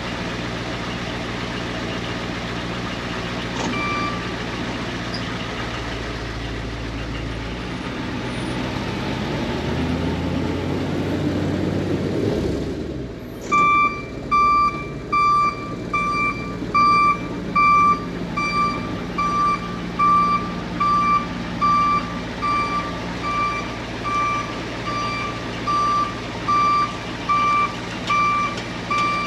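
International 4600 dump truck's non-turbo 7.3 IDI diesel engine running, revving up briefly about ten seconds in. From about halfway, a backup alarm beeps steadily, a little faster than once a second, the sign that the truck is in reverse.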